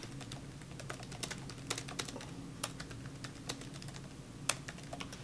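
Typing on a computer keyboard: an irregular run of key clicks, with one louder keystroke about four and a half seconds in, over a faint steady low hum.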